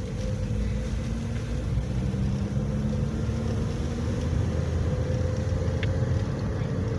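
Fiat Palio Weekend car driving at steady speed, heard from inside the cabin: a steady low engine hum and road noise with a held engine note. There is one faint tick near the end.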